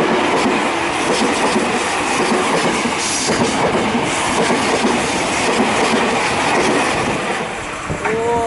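Commuter electric train passing close by, its wheels clattering over the rail joints in a loud, steady rush of noise; the tail of its horn blast cuts off right at the start.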